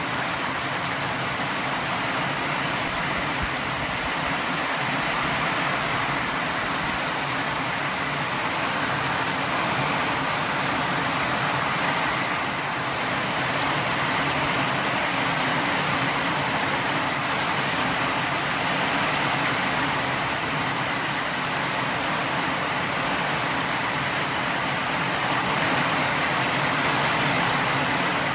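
Steady rain falling, an even hiss that holds without let-up.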